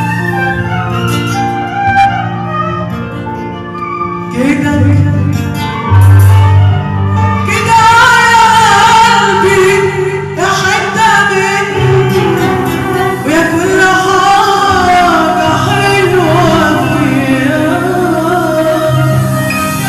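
A woman singing an Arabic pop song over instrumental accompaniment with a steady bass line. The opening seconds are mostly instrumental melody, and the voice comes in strongly about four to five seconds in.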